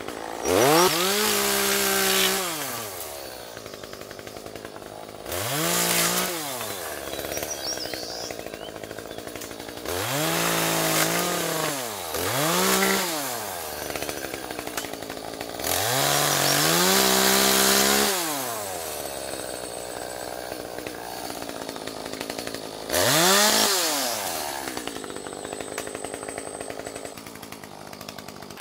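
Chainsaw revved to full speed and let back to idle about six times while cutting up a fallen tree, each burst rising in pitch, holding, then dropping back, with the engine idling between cuts.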